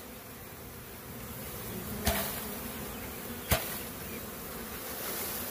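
A mass of freshly shaken package honeybees buzzing steadily, with two sharp knocks, about two and three and a half seconds in, as the wooden package cage is rapped to knock out the last bees.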